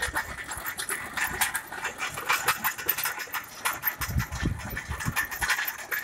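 Tractor-mounted chain trencher digging through dry, stony soil: a dense, irregular clatter of the chain's cutting teeth, clods and stones. Heavier low knocks come about four seconds in.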